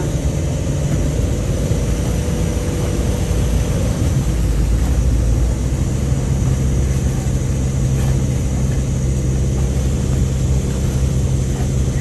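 A sailboat's engine running steadily, its hum settling into a deeper, more even drone about five seconds in, under strong wind buffeting the microphone.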